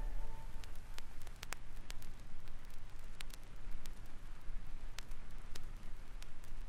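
Vinyl record surface noise in the silent groove between tracks: a steady low hiss with scattered sharp clicks and crackle over a low hum.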